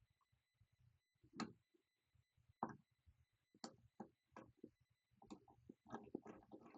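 Faint clicks and knocks of a garden hose's supply-side coupling being handled and screwed onto the handwashing station's manifold with its screened washer. The clicks come a few at a time at first, then closer together near the end.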